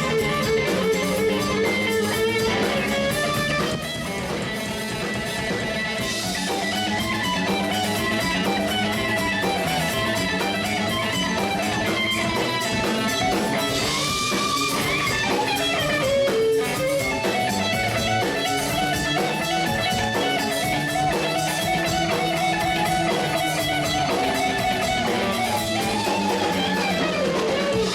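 Background music led by guitar, with a steady strummed and plucked part.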